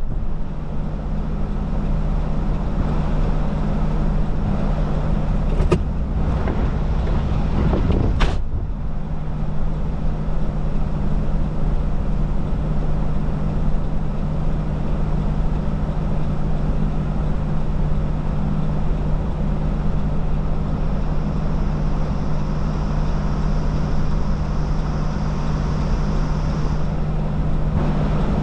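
Steady low hum of a stopped car's idling engine heard inside the cabin, under a constant rushing noise, with two brief knocks about six and eight seconds in.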